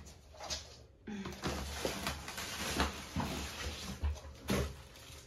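Cardboard box being handled and opened: irregular knocks, low thumps and rustling.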